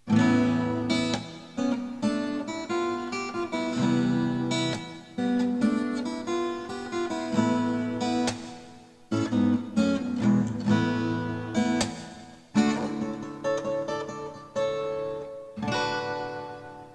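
Acoustic guitar playing a slow chord intro, chords strummed and picked and left to ring, the last one dying away near the end.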